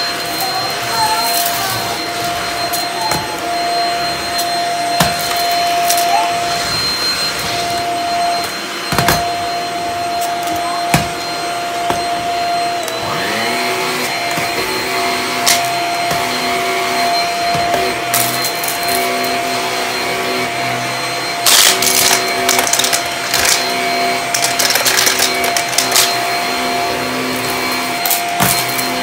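Bissell vacuum cleaner running over a hardwood floor with a steady motor whine that changes pitch about halfway through. Scattered sharp clicks, then a burst of rattling crackles later on, as bits of debris are sucked up.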